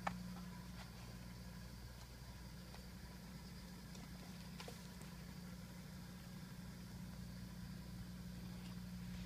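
Steady low hum, with a sharp click right at the start and a fainter click about halfway through.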